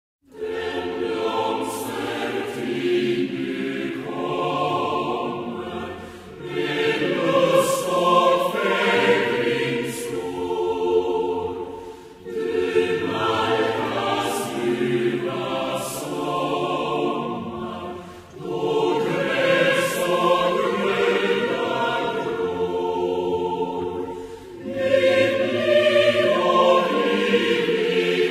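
A choir singing in long, sustained phrases, with brief breaks about every six seconds.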